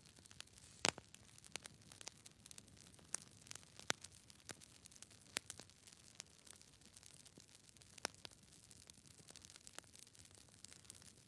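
Faint, irregular clicks and crackles over a low hiss, the loudest about a second in.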